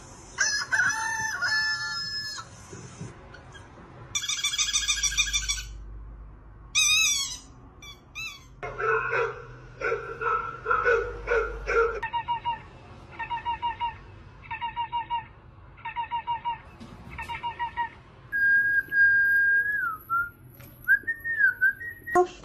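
A string of short, unrelated sound effects played one after another: pitched animal-like calls, fast warbling trills, five or six identical short calls about a second apart, then a held whistle-like tone that dips and wobbles near the end.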